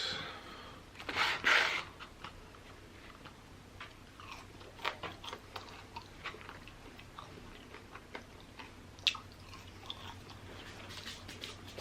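A person eating a sandwich close to the microphone: a louder bite about a second in, then steady chewing with small wet clicks.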